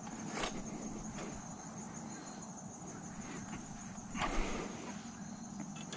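Insects trilling steadily on one high note, over a low steady hum. A few short rustles break in, the loudest about four seconds in.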